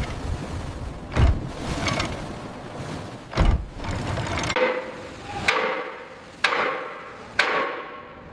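Hammer blows on steel plating, about one a second, each ringing briefly, starting about halfway through. Before them, a rough rushing noise with a couple of heavy thuds.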